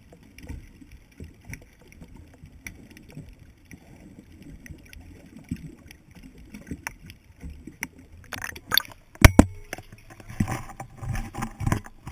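Muffled underwater noise around a submerged camera, with faint scattered clicks. Several loud sharp knocks come about eight to nine seconds in, then louder splashing and handling noise as the camera is lifted out of the water near the end.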